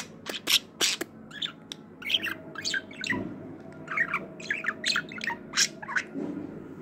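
Budgerigar chattering close up: a rapid string of short chirps, squawks and clicks.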